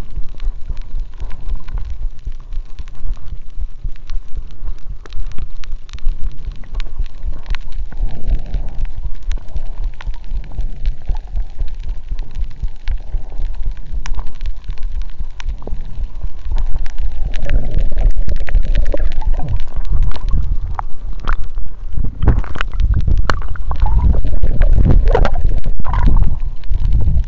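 Underwater sound picked up by a submerged action camera while swimming: a heavy, muffled rumble of moving water with many sharp clicks. It grows louder with bubbling, gurgling rushes in the last third.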